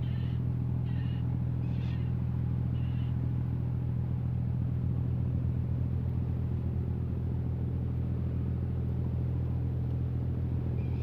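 Longline fishing boat's engine running steadily at an even pitch. Four short high calls from the seabirds around the boat come in the first three seconds.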